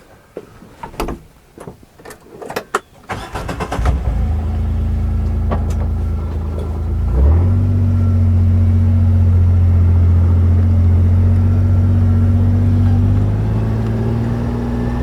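A few clicks and knocks, then a vehicle engine starts about four seconds in and runs steadily, picking up a little about seven seconds in.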